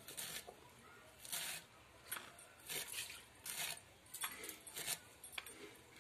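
Bunches of note shaak (amaranth greens) being sliced finely on a boti, a fixed curved blade, in a run of about eight short crisp cutting strokes, roughly one every half to one second.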